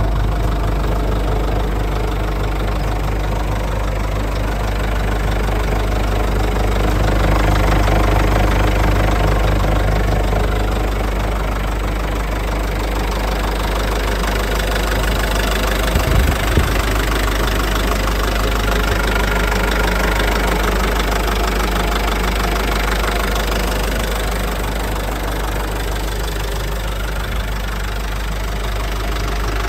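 Hyundai Mighty truck's CRDi diesel engine idling steadily, heard close up with the cab tilted forward. There are a couple of short knocks about sixteen seconds in.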